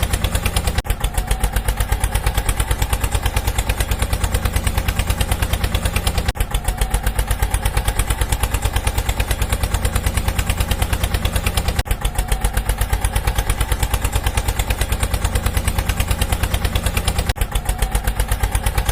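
An engine sound effect running as a rapid, even chugging with a heavy low rumble, repeating as a loop with a brief dip about every five and a half seconds.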